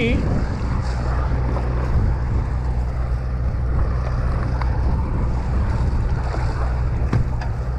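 Steady low drone of a fishing boat's engine, with wind buffeting the microphone and the wash of waves against the hull.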